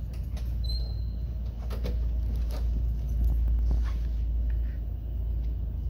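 Key turning in the trunk lock of a 1966 Ford Mustang and the trunk lid unlatching and lifting open: a few short clicks and metallic clunks over a steady low rumble.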